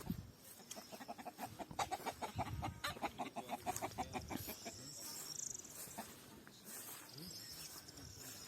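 Chickens clucking in a quick run of short calls during the first half, followed by fainter, high chirping.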